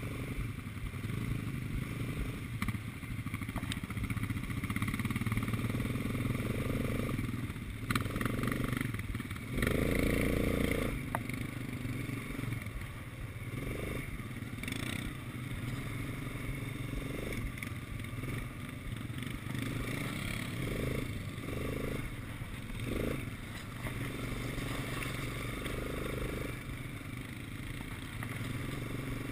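Quad bike engine running while being ridden over a dirt track, swelling and easing off several times as the throttle is worked, loudest about ten seconds in. A few sharp knocks from the bike are heard over the rough ground.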